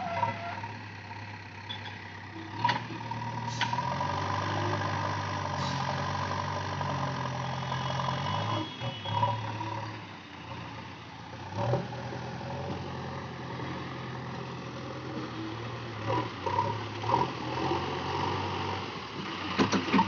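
JCB 3DX backhoe loader's diesel engine running under load while the front loader bucket digs into and lifts a heap of sand. It revs up for several seconds and eases back about ten seconds in, with a few sharp metallic knocks from the bucket and loader arms.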